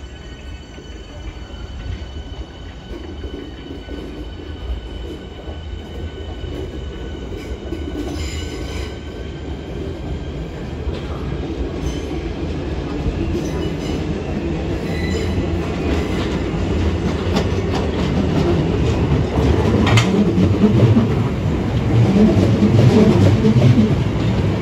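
Southeastern Networker electric multiple unit (class 465/466) running in on the station approach, a rumble of wheels on rail growing steadily louder. Brief clicks and squeals from the wheels come through now and then as it crosses the pointwork.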